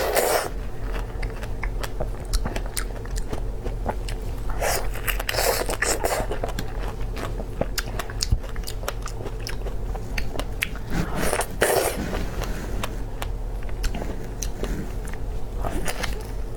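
Close-miked biting and chewing of strawberries: a loud bite about every five or six seconds, with many small chewing clicks between them, over a steady low hum.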